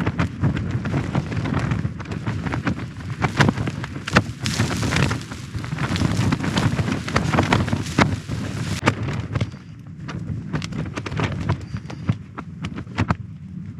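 Strong wind buffeting a tent: a continuous low rush of gusts with the fabric flapping and snapping in many sharp cracks, easing somewhat about ten seconds in.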